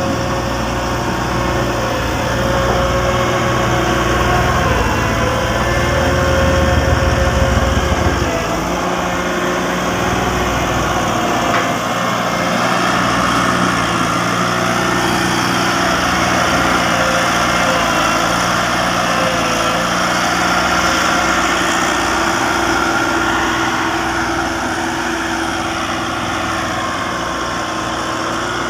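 Volvo vibratory road roller's diesel engine running steadily, with a heavy low rumble that drops away about eight seconds in.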